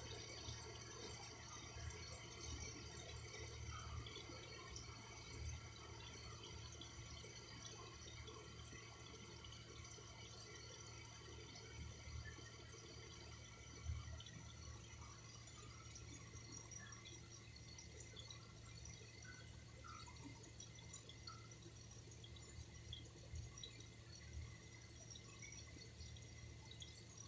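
Faint running water with scattered drips over a low steady hum.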